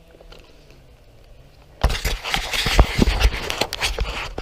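Rustling and scraping close to the microphone with many irregular knocks and clicks, starting suddenly about two seconds in after a quiet start.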